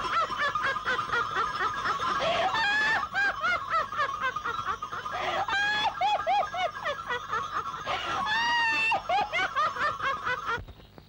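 A woman laughing hard and uncontrollably: a long run of high, shrieking cackles that rise and fall in pitch. It breaks off abruptly near the end.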